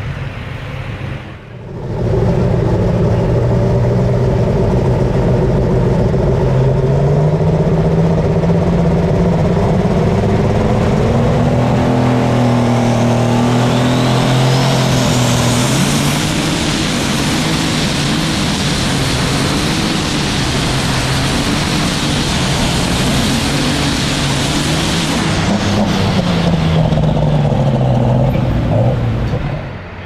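Alcohol-burning John Deere light super stock pulling tractor engine running hard under load, its pitch climbing and wavering. A high whine rises in pitch about halfway through, and the engine sound cuts off near the end.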